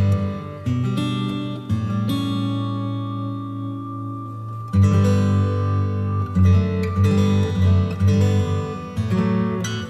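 Background music: soft acoustic guitar, plucked and strummed chords with held notes ringing between changes.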